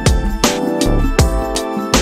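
Background music: sustained chords over a deep drum beat about every three quarters of a second.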